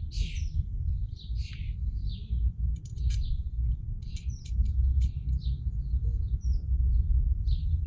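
Small birds chirping and calling again and again over a steady low rumble, with a few light clicks near the middle.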